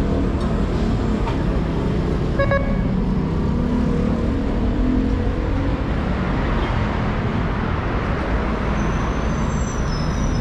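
Steady road traffic of cars and buses on a busy city avenue. A short beep sounds about two and a half seconds in, and a high squeal begins near the end.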